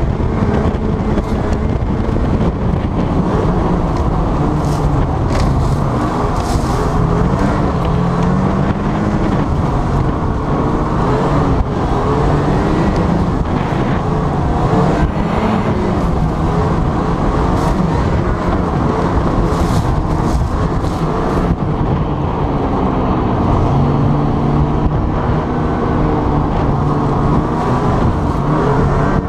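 Snowmobile engine running hard at speed, its pitch rising and falling, over the continuous rush and spray of the track skimming across open water, slush and ice.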